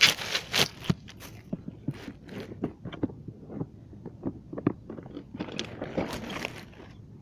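Plastic tackle box and the tackle inside it being handled close to the microphone: irregular clicks, knocks and scrapes, busiest in the first second.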